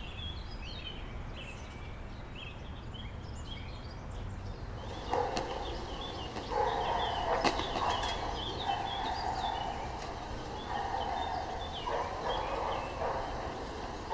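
Many small birds chirping and twittering in a dense, overlapping chorus. About five seconds in, a steadier background din joins under them.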